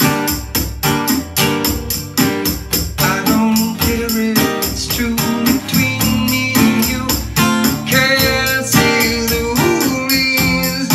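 Steel-string acoustic guitar strummed in a steady, quick rhythm, about four or five strokes a second, with a man singing over it at times.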